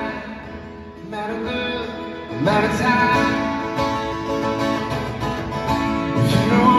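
Acoustic guitar played live and heard through an arena's PA. After a softer passage, strumming comes in strongly about two and a half seconds in.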